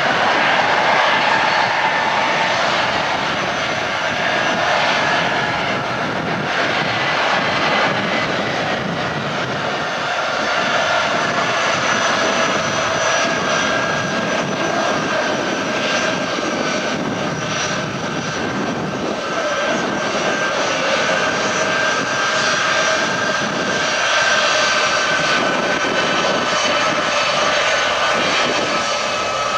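Boeing C-17A Globemaster III's four Pratt & Whitney F117 turbofan engines running at taxi power: steady jet noise with high whining tones that drift slowly in pitch.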